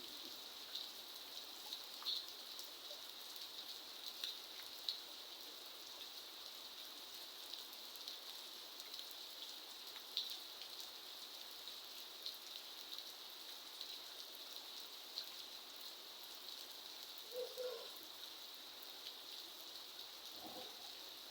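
Steady rain falling, a continuous hiss with frequent sharp drops tapping on a surface. A brief lower-pitched sound, perhaps a bird, comes in near the end.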